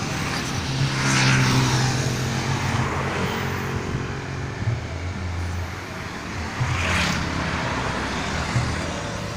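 Road traffic: a motor vehicle engine runs steadily while two vehicles pass by, one about a second in and another about seven seconds in.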